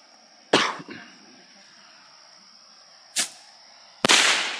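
Firecrackers going off. There is a sharp bang about half a second in with a smaller crack just after it, and another single bang a little past three seconds. Near the end a rapid run of loud pops begins.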